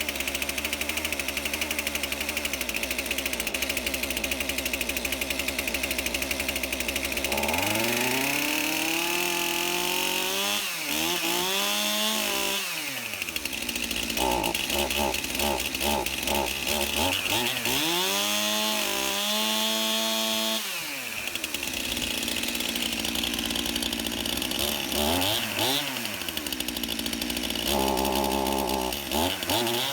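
Stihl MS271 Farm Boss two-stroke chainsaw running cold just after a cold start, holding a steady fast idle at first, then revved up and let back down several times. The owner finds this saw cold-blooded, hard to accelerate without stalling or cutting out until it warms up.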